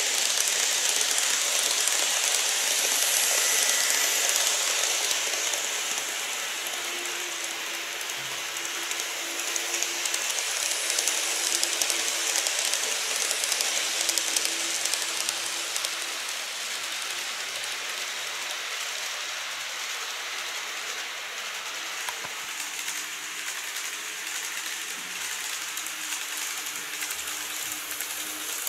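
Model electric trains running on track: a steady rattling hiss of small wheels on the rails with a faint motor hum underneath. It is loudest as a train passes close at the start and swells again about a third of the way in.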